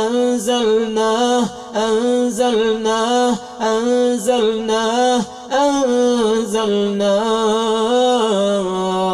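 A man reciting Quranic verses in a slow, melodic chant, drawing out the notes with short breath pauses about every two seconds, and holding one long note near the end.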